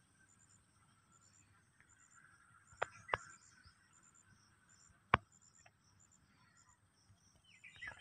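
Faint field ambience with a high, evenly repeating insect chirp, broken by a few sharp clicks: two close together about three seconds in and a louder one about five seconds in.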